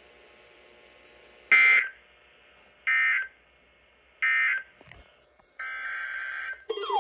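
EAS end-of-message data tones: three short, identical bursts of shrill digital screech about 1.3 seconds apart. After a faint click, a longer burst of the same kind of data tone follows, the header of the next alert. Right at the end a warbling alert tone starts.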